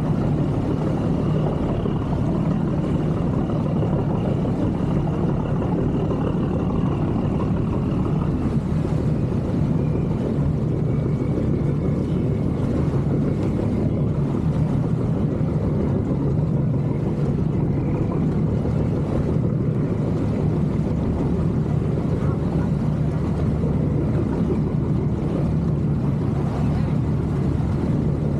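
Steady motor hum, unchanging throughout, with a faint high whine that steps down slightly in pitch about ten seconds in.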